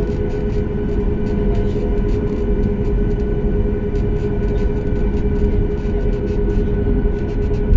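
Steady machine drone: a low rumble with a constant hum on top and faint ticks, unchanging throughout.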